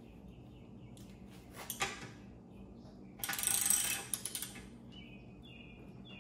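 A hand tool working the oil drain plug back into a Mercury four-stroke outboard: a few light metal clicks, then a rapid clicking rattle lasting about a second, a little past halfway, with a few more clicks after it.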